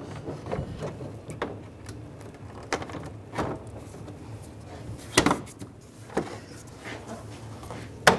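Plastic front bumper cover of a Dodge Dart being slid and pushed into place against the headlight and fender, giving scattered scrapes and knocks. A sharper knock comes about five seconds in and another near the end.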